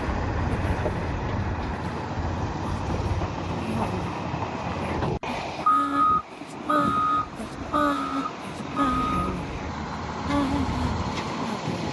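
Diesel engine of heavy machinery running steadily; after an abrupt cut about five seconds in, a reversing alarm beeps four times, about once a second, over the engine.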